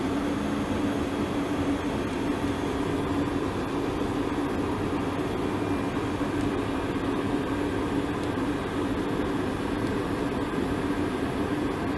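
Steady cockpit noise of a DC-9-14 airliner on approach: an even rush of airflow and engine noise with a steady low hum running through it.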